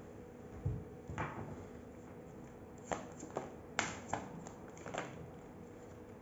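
Tarot cards being handled and laid on a table: a soft thump under a second in, then a handful of sharp, separate taps and clicks as the deck and cards meet the tabletop.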